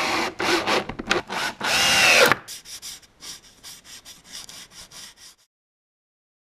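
Power drill/driver driving a screw into a block of wood, its motor whining and changing pitch as the screw seats. This is followed by a quick series of rubbing strokes, about four a second, and the sound cuts off abruptly about five seconds in.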